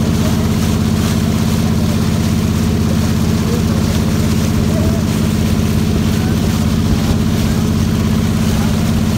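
Riverboat engine running steadily at an even speed, with no change in pitch.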